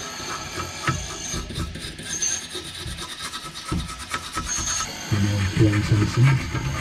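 Soft brush scrubbing the ignition electrodes and burner of a gas boiler: a dry, scratchy rubbing of quick repeated strokes. A low pitched hum joins about five seconds in.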